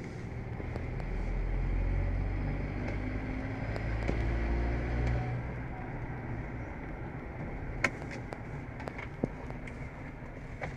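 Car engine and road noise heard from inside the cabin, the engine pulling harder from about a second in and easing off about five seconds in. A few sharp clicks follow later.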